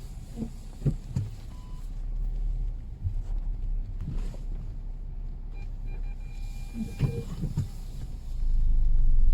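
Lada Vesta Cross rolling slowly over small road bumps, heard inside the cabin: steady low road rumble with a few soft, short suspension thumps, louder near the end. With DEMFI shock absorbers in the front struts, the suspension knock on small bumps is much quieter.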